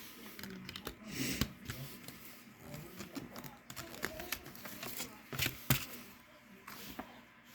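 Plastic CD case being handled and opened: scattered sharp clicks and rustling, with the loudest clicks about a second and a half in and twice close together near the middle.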